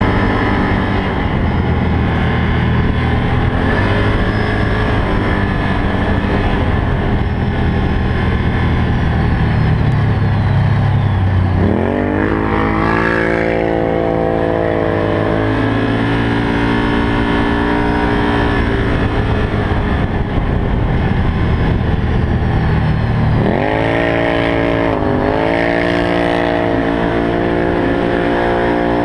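Can-Am Maverick side-by-side's engine running under way, with a low rumble beneath it. The engine revs up sharply about twelve seconds in and again near the end, each time settling into a higher steady pitch.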